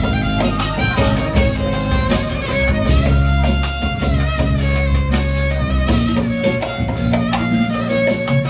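Live band playing an instrumental passage of a Turkish song: violin and guitar over a steady low accompaniment.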